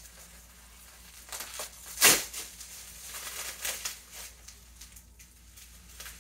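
Plastic packing wrap and tape crinkling and tearing as a wrapped package is picked open by hand: scattered rustles with one sharp, loud crackle about two seconds in.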